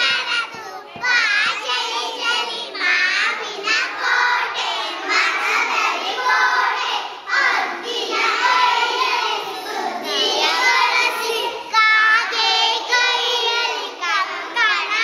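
A group of young schoolchildren singing a song together, their high voices going without a break.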